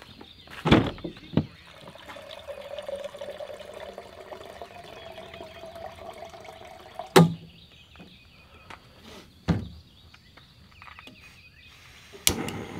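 Water pouring into a container, its faint tone rising slowly as the container fills. Several sharp knocks from gear being handled and packed, the loudest sounds here.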